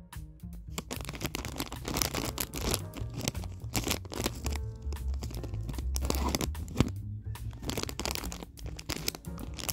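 Clear plastic bag crinkling and crackling irregularly as a paper card is slid into it and handled, over background music.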